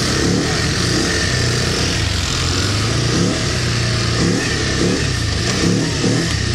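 ATV engine running, with the throttle blipped in a string of short revs that rise and fall over a steady engine hum.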